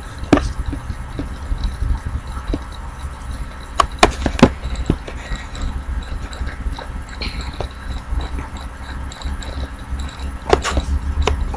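Low steady rumble of background room noise, with a few scattered sharp clicks and knocks: a cluster about 4 seconds in and another near the end.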